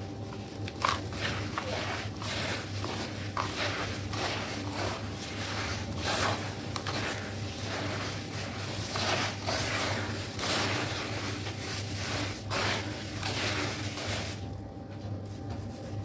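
Red sand crumbling and squishing in water as gloved hands squeeze and break up wet clumps in a tub: a run of irregular soft crumbling sounds that stops about a second and a half before the end.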